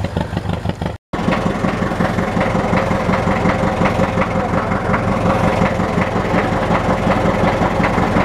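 Motorboat engine running steadily at low speed with an even, pulsing beat, after a brief dropout about a second in.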